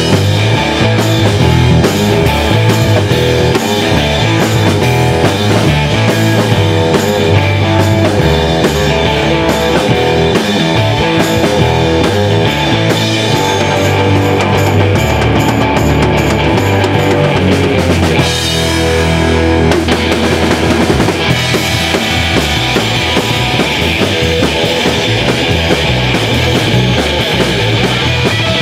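Live instrumental surf-rock band playing loud: electric guitar through a Vox amplifier, electric bass and drum kit. About eighteen seconds in the cymbals drop out for a couple of seconds, then the full band comes back.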